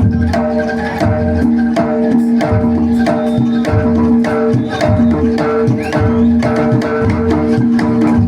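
Live jaranan ensemble music: rapid drum and percussion strokes over a steady held melodic tone.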